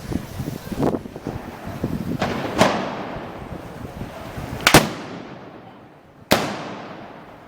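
A series of sharp gunpowder bangs at irregular intervals, each trailing off in an echo; the loudest come about five and six seconds in.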